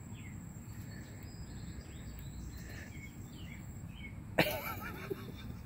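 Steady low outdoor background rumble with faint high chirps. About four seconds in, a short, loud burst of a person's voice.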